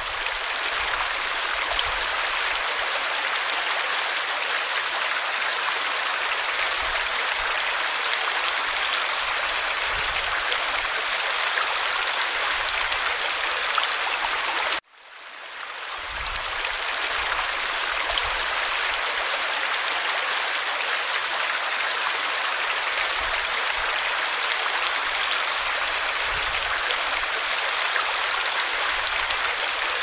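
Stream water running and splashing steadily over a small cascade into a pool. The sound cuts out abruptly about halfway through and swells back in over a second.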